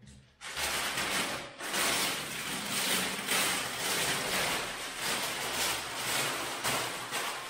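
Brown paper wrapping being pulled off wooden ceiling beams and crumpled by hand: a continuous crackling rustle that starts about half a second in.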